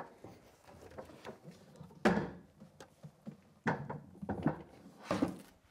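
Knocks and clunks of a Concept2 Model D rowing machine's front section (fan-flywheel housing with its legs and handle) being turned over and set upright on a hard floor. One loud clunk with a short ring about two seconds in, then several more close together near the end.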